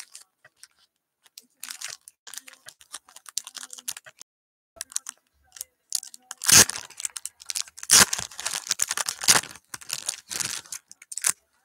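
Hands crinkling a foil trading-card pack wrapper and tearing it open: a run of short, scratchy crackles, with the loudest rips in the second half.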